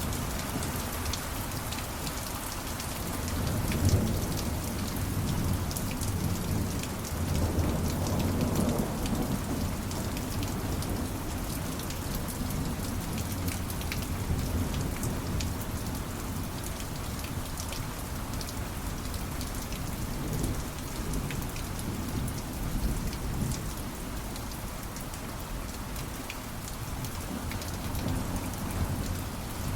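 Steady rain falling, with low rumbles of thunder; the thunder swells about 4 seconds in and again around 8 seconds.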